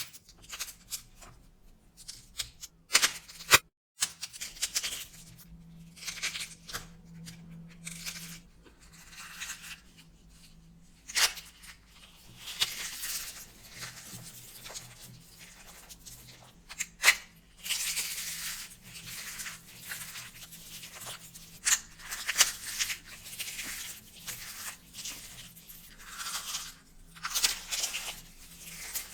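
Dry, starch-coated soap being crushed and crumbled: crisp crunching and crumbling with occasional sharp cracks, loudest around a third and halfway through.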